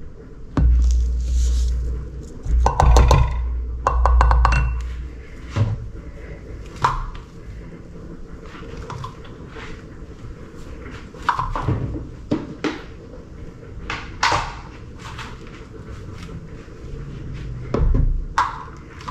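Brown sugar tipped from a black cup into a glass mixing bowl, with handling clinks and knocks of the cup, bowl and wooden spoon: a clatter of clinks about three to five seconds in, then scattered light taps and thunks.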